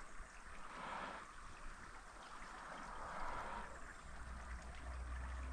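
Small stream trickling faintly, a soft, steady wash of water that swells gently twice.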